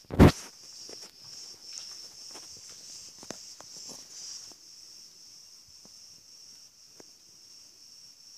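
Steady high-pitched chirring of insects, with one loud thump just after the start and scattered light taps and clicks over the next few seconds.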